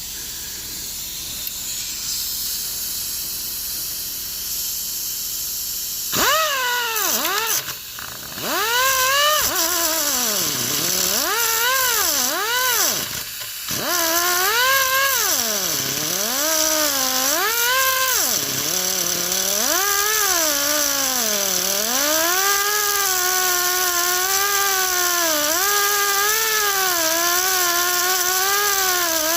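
Small air-powered cut-off tool cutting through the end of an accelerator rod. After a steady hiss, its whine starts about six seconds in and dips and recovers again and again as the wheel bites and frees, then runs steadier near the end.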